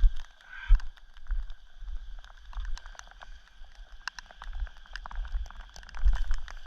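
Rain striking close to the microphone in irregular sharp ticks, with wind gusting on the microphone in low thumps.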